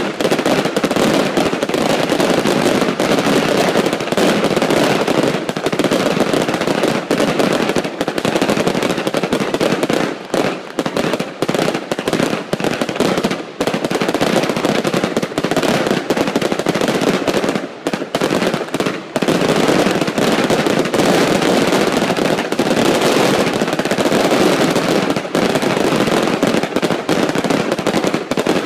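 Fireworks going off in a dense, continuous barrage of rapid bangs and crackles, from aerial bursts and ground-level firecrackers, with a few brief lulls around ten, thirteen and eighteen seconds in.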